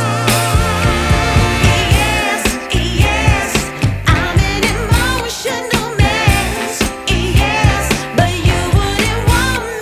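Background pop song with a female singing voice over a steady beat.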